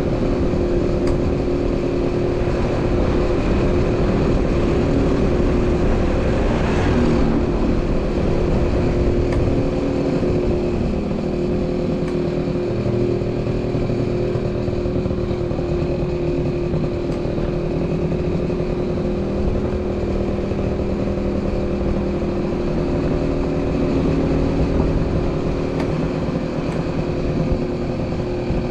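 Motorbike engine running steadily during a ride, with a brief swell of noise about seven seconds in.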